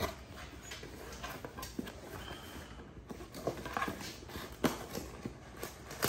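Irregular light knocks, taps and rustling of a cardboard box being handled and worked open by hand.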